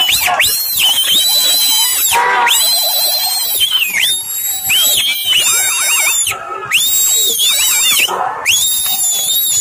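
Shrill whistling blown over and over, about seven long whistles in a row. Each one slides up, holds about a second with some wavering in pitch, and falls away, over the noise of a crowd at a buffalo race.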